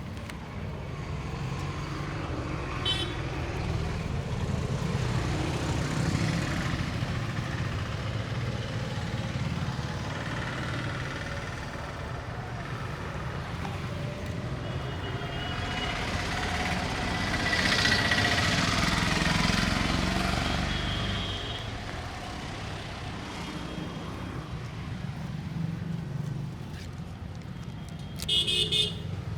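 Street traffic running steadily, with a vehicle passing louder around the middle and scattered brief horn toots, one near the end.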